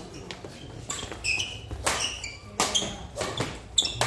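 A fast badminton doubles rally: several sharp racket-on-shuttlecock hits, with athletic shoes squeaking briefly on the court floor between them.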